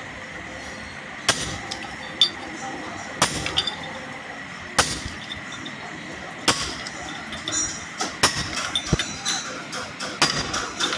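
Hammer blows on steel driving a new synchronizer and gear onto a manual gearbox shaft: a series of sharp metallic strikes that ring briefly, irregularly spaced a second or two apart, with lighter clinks of the parts in between.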